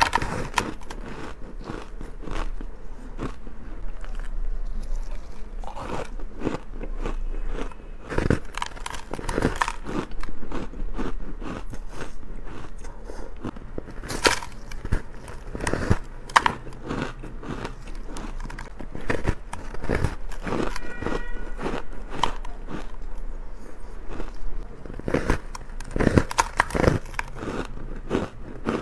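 A person biting into and chewing a slab of soft, powdery frozen ice close to the microphone: a dense, irregular run of sharp crunches and crackles.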